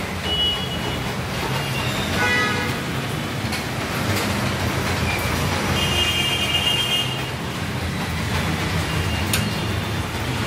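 Steady low rumble of background noise, with a few short high tones and a brief pitched toot about two seconds in.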